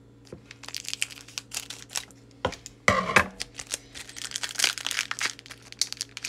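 Foil booster-pack wrapper crinkling and tearing as it is cut open with scissors and handled, a dense run of irregular sharp crackles with a louder burst about three seconds in.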